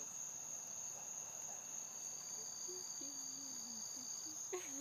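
Evening insect chorus of crickets, a steady high-pitched trill that holds unbroken throughout. A faint voice comes in about three seconds in, and there is a short knock near the end.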